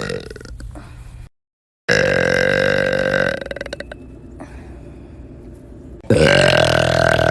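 A person letting out long, loud burps. One tails off at the start; after a brief silent cut, another holds for about a second and a half. A third begins near the end with a rising onset.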